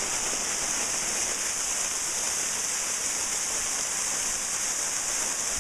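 Steady rushing hiss of a waterfall of about 20 to 25 feet, water falling into a rock bowl.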